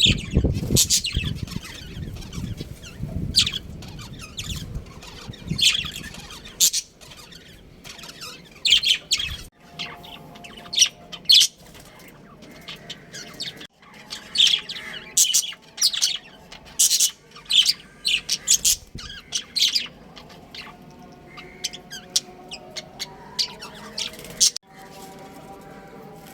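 Pet budgerigars chirping: many short, high chirps in quick clusters, broken by a few abrupt cuts.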